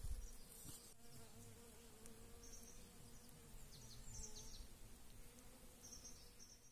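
Faint buzzing of a flying insect, a steady hum that wavers slightly in pitch, with a few short high chirps over it.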